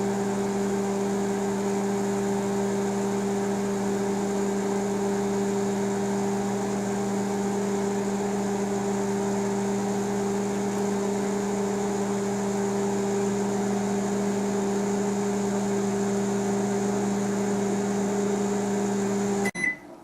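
Microwave oven running with a steady hum, cutting off suddenly near the end as its cooking time runs out.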